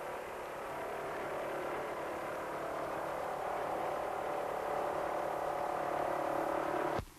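Hanomag R12 tractor's single-cylinder two-stroke diesel running steadily at working speed while hoeing, growing louder as it approaches, then cut off abruptly near the end.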